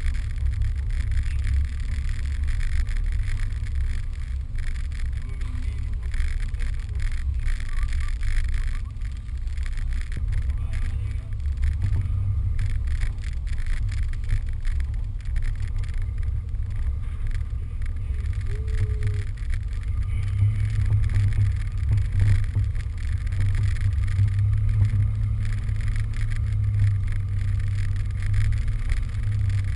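Car driving slowly on a snowy road, a steady low engine and road rumble that swells a little in the last third.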